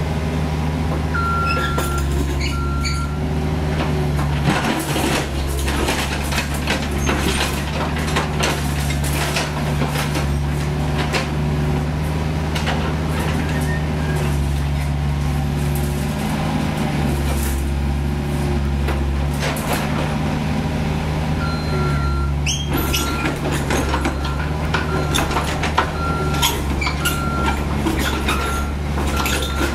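Caterpillar 304E CR mini excavator's diesel engine running steadily under hydraulic work, its note shifting slightly as the controls are worked, with scattered clanks and knocks from the working arm. A short high beep repeats about once a second briefly near the start and again through the last third, with a brief rising squeal just before it resumes.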